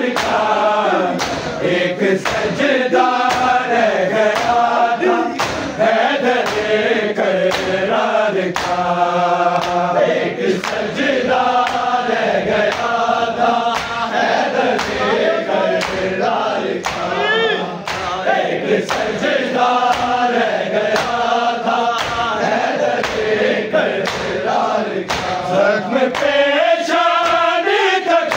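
Men chanting an Urdu noha in chorus, over a steady beat of sharp slaps, about three every two seconds: matam, hands striking chests in time with the lament.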